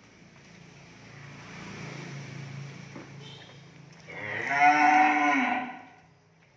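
A cow moos loudly once, about four seconds in, a single call lasting nearly two seconds.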